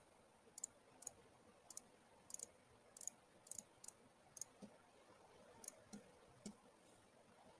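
Computer mouse clicking: a dozen or so short, light clicks at irregular intervals, faint against a quiet room.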